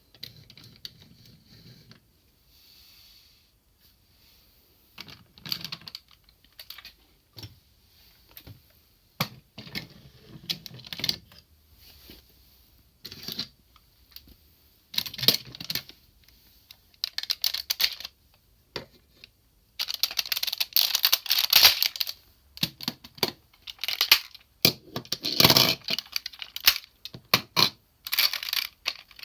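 Hard plastic parts of a DX Sirender robot toy clicking and clattering as it is handled and transformed, in irregular clicks with a longer run of rattling about two-thirds of the way through.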